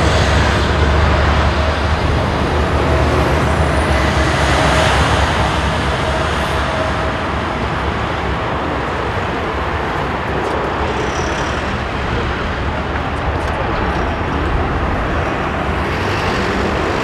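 Airbus A380-841's four Rolls-Royce Trent 970 turbofans running at taxi power as the airliner turns onto the runway: a loud, steady jet rumble, with a faint humming tone that fades after about six seconds.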